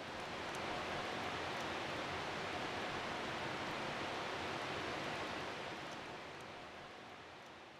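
Steady rain falling in a forest, an even hiss with a few faint drip ticks, fading out over the last couple of seconds.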